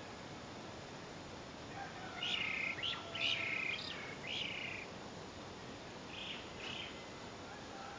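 Birds calling: a run of several short calls starting about two seconds in and lasting a few seconds, then two fainter calls near the end, over a steady background hiss.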